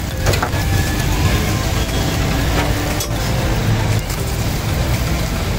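Steady low rumble of road traffic mixed with the sounds of a street-food stall's iron paratha griddle, with two sharp clicks, one near the start and one about three seconds in.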